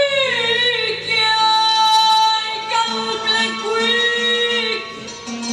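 A woman singing an Arabic vocal line into a microphone, holding long notes that bend and waver in pitch. A low steady note sounds beneath the voice.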